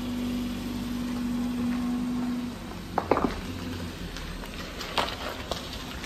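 Parked car idling with a steady hiss and a low hum; the hum stops about two and a half seconds in, and a few short sharp clicks follow.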